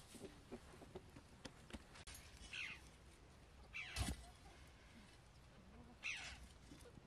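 An animal calling three times, short high calls that each slide down in pitch, with faint clicks and a sharp knock at the second call.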